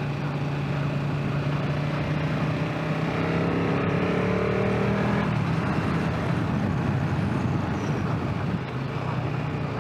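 Motorcycle engine running at road speed over wind noise, its note climbing about three to five seconds in as the bike accelerates past a car, then turning rougher.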